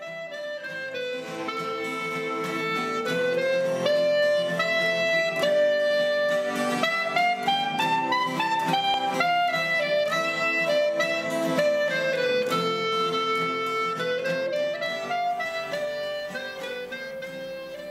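Instrumental music: a melody on a wind-like instrument that climbs to a high point midway and falls again, with several notes sounding together as accompaniment.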